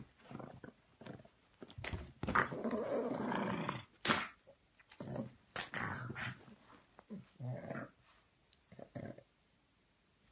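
A pug growling in several short bouts, the longest lasting about two seconds.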